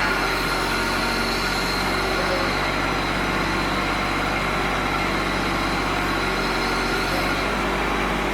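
John Deere 17D mini excavator's diesel engine running steadily.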